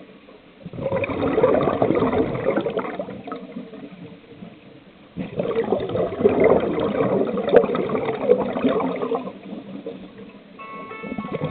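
Scuba diver breathing out through a regulator underwater: two long gushes of bubbles, each a few seconds, with a quiet pause between.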